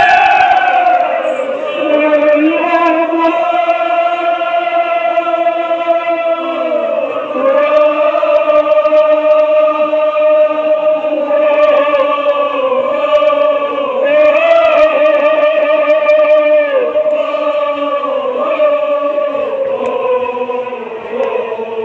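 Voices chanting a Kashmiri marsiya, a Muharram elegy, in long held notes of several seconds each that waver slightly in pitch.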